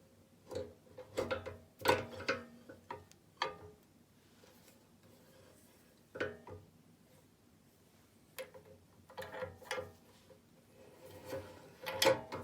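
Irregular clinks and knocks of metal parts being handled, some of them ringing briefly, in several short clusters with quiet gaps between.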